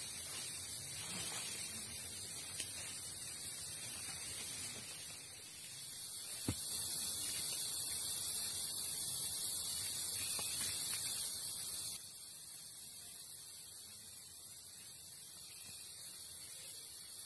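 High-pitched, steady buzzing chorus of rainforest insects. It swells louder about six seconds in and drops back suddenly about twelve seconds in. There is a single soft knock just after six seconds.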